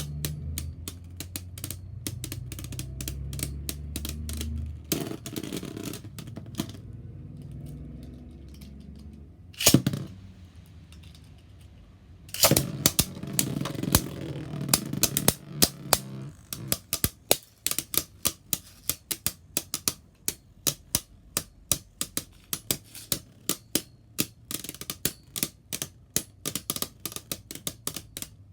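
Beyblade spinning tops clashing in a plastic stadium: a long run of sharp clicks and clacks, with a single loud hit about ten seconds in and a louder stretch of rattling around twelve to sixteen seconds, then steady clicking a few times a second.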